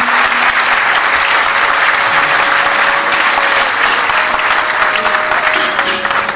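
A large audience applauding steadily, with a faint held note from an instrument underneath.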